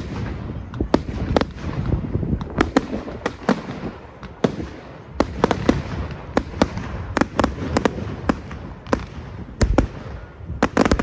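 Fireworks display: a rapid, irregular string of sharp bangs and cracks, several a second at times, over a continuous low rumble, with a tight cluster of loud bangs near the end.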